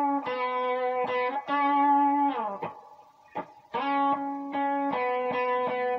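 Electric guitar playing a slow blues phrase in a relaxed swing feel: held notes that end in a slide down about two and a half seconds in, then the same phrase again from about four seconds in.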